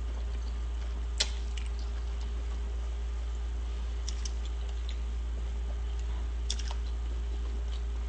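A few faint, scattered clicks and taps over a steady low hum.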